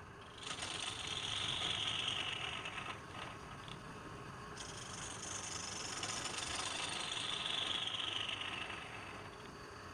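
Wood lathe running, with a turning tool cutting the spinning wood in two long passes, each a hiss that slowly drops in pitch.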